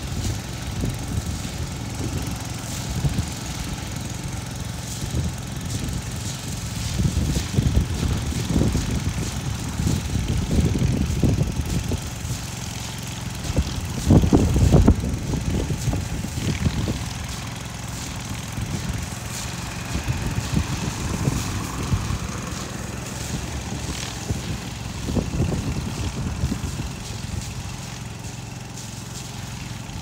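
Water tanker truck's diesel engine running as the truck creeps along, a low rumble that rises and falls and is loudest about halfway through.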